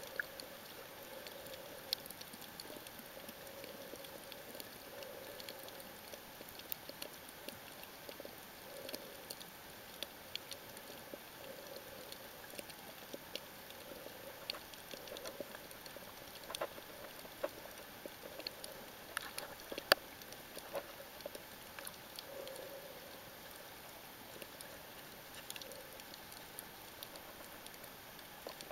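Underwater reef sound picked up by a submerged camera: a faint steady hiss with scattered, irregular sharp clicks and crackles, the loudest about twenty seconds in.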